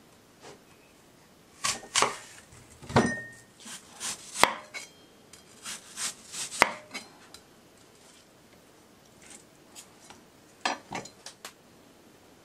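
Kitchen knife slicing a hard peeled apple on a wooden cutting board: the blade crunches through and knocks on the board in separate strokes with pauses between. Near the end comes a quick run of four or five cuts.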